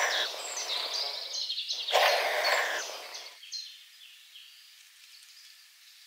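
European nightjar chick hissing with its beak wide open: a long hiss that stops about a second and a half in, then a second from about two to three and a half seconds in, the gape-and-hiss threat display of a disturbed chick. Songbirds chirp in short, falling whistled notes throughout.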